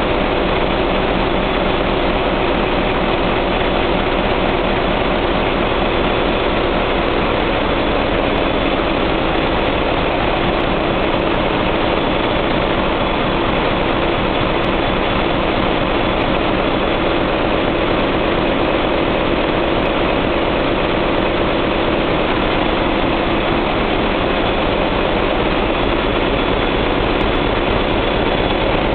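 Loud, steady drone of a cruise ship's large diesel generator engines running in the engine room, an unchanging machinery noise.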